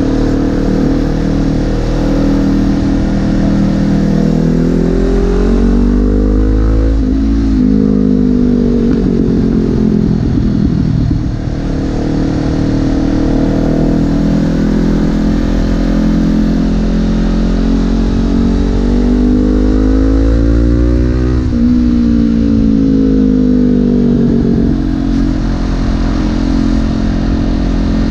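Honda CB500F parallel-twin engine pulling under acceleration, its pitch climbing and then dropping sharply at gear changes twice, with a stretch of easing off in between. A steady low rumble sits underneath.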